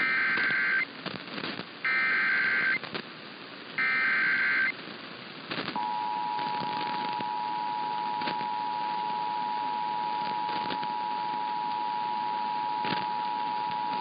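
Emergency Alert System SAME header: three short bursts of screechy digital data tones about a second apart. About six seconds in, the EAS two-tone attention signal (853 and 960 Hz) begins and holds steady, over constant radio hiss. Together they announce an alert, here a severe thunderstorm warning.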